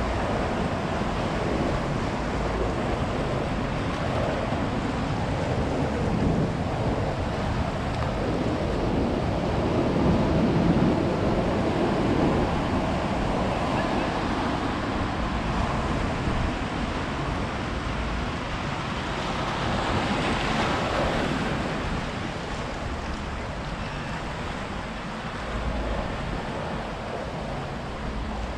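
Ocean surf: waves breaking and washing up the beach in a continuous roar, swelling loudest about ten seconds in, with a hissing surge around twenty seconds. Wind buffets the microphone.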